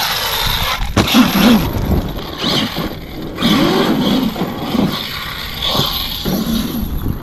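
Arrma Kraton 8S RC monster truck's 800 kV brushless motor and drivetrain whining, the pitch swelling and falling several times with bursts of throttle, over the scraping of tyres on gravel. A sharp knock about a second in.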